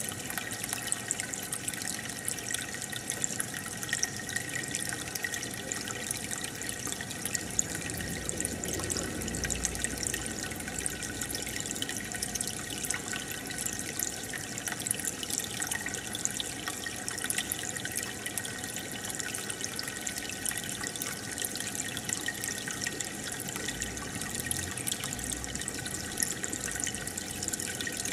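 Aquarium water trickling and bubbling steadily, with a dense patter of small drips and splashes.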